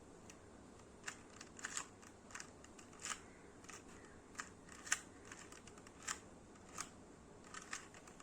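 Faint plastic clicks of a 2x2 Rubik's cube being turned by hand through a PBL algorithm, an irregular run of about two clicks a second.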